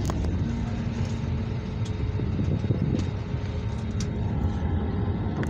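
Steady low rumble inside the cabin of an Airbus A321neo airliner, with a few faint clicks and knocks.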